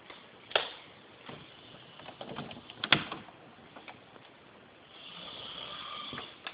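A man snoring in his sleep: one drawn-out snoring breath about five seconds in, lasting over a second. Before it come two sharp clicks or knocks, near half a second and near three seconds in.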